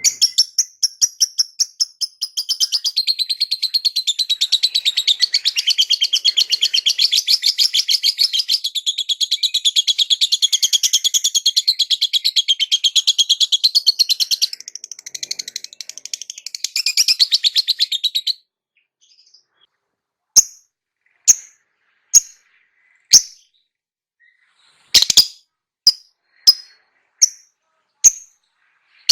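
Lovebird calling: a fast, continuous high-pitched chattering trill for about eighteen seconds, then a brief pause and a string of single sharp chirps about one a second.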